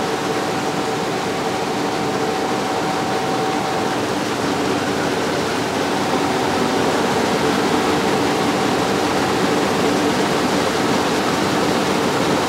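Rice mill machinery running steadily: a loud, even rushing noise from the machines and the grain moving through them, with a faint steady hum underneath.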